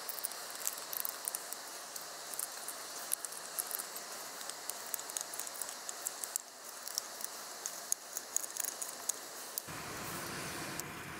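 Knife blade shaving a wooden spoon blank by hand: short, irregular scraping strokes with sharp little clicks as the edge cuts the wood.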